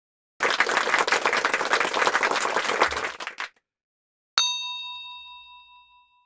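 A short burst of applause, many hands clapping, that cuts off abruptly after about three seconds. After a moment of silence comes a single bright bell ding, one strike that rings out and fades over about two seconds.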